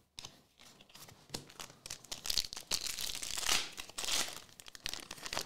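Foil wrapper of a 2024 Elite football trading card pack being torn open and crinkled by hand: irregular crackling and tearing, louder from about two seconds in.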